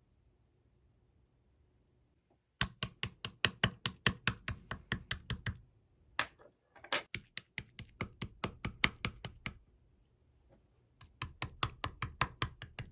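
Typing on a keyboard: three runs of quick, even key clicks, each lasting a few seconds, with short pauses between them.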